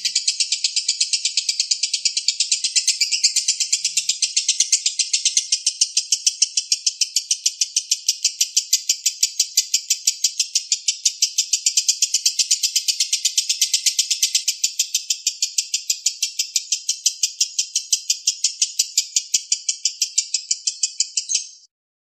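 Lovebird giving a long ngekek: one unbroken, rapid chattering trill of high chirps, about six a second, that cuts off abruptly near the end.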